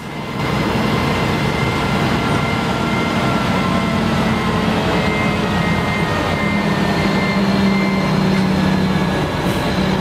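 John Deere rubber-tracked dozer's diesel engine running steadily under load as it pushes gravel with its blade.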